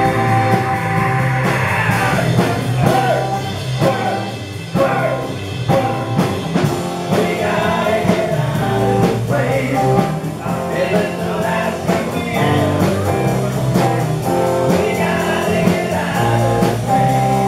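Live rock band playing electric guitars and drums to a steady beat, with a man singing lead.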